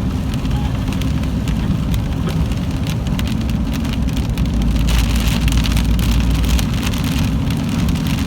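Rain hitting a moving car over a steady low rumble of road and engine noise inside the cabin. The rumble and the rain grow louder for a second or two about five seconds in.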